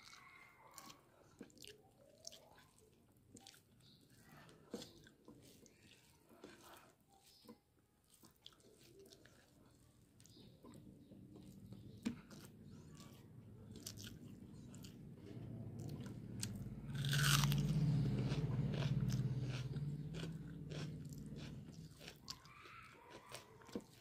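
Close-up eating sounds of rice and curry eaten by hand: wet chewing, lip smacks and many small clicks. In the second half a low rumble swells, loudest about two-thirds through, with a short hiss at its peak, then eases off.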